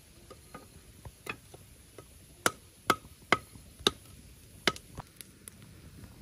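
Sharp knocks of a hand tool at work: five loud strikes at uneven intervals of about half a second to a second in the middle, with softer taps before and after.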